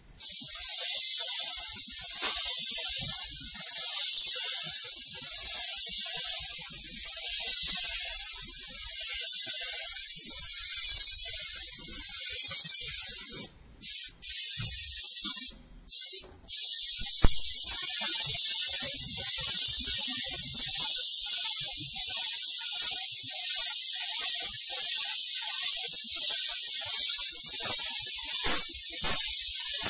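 Compressed-air spray gun with a hanging paint cup hissing steadily as it sprays paint, cutting off briefly a few times about halfway through as the trigger is let go.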